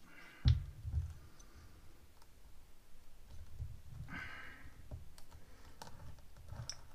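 Plastic epoxy resin bottle and its screw cap being handled: a sharp click about half a second in, then a few lighter clicks and knocks.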